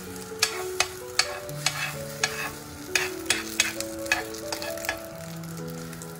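Egg mixture sizzling in a flat non-stick pan while a spoon scrapes and taps against the pan, with irregular sharp clicks about two or three times a second.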